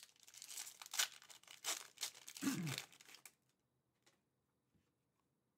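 Foil wrapper of a Fleer Ultra Marvel trading card pack being torn open and crinkled by hand. The tearing runs for about three seconds, then stops.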